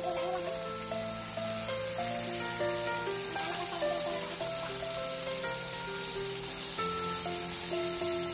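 Flour-coated fish deep-frying in a pan of hot oil: a steady crackling sizzle. Background music with a gentle melody of held notes plays along.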